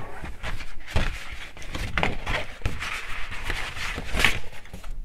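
Cardboard slipcases being fetched and handled: steady rustling and scraping with light knocks, stopping near the end.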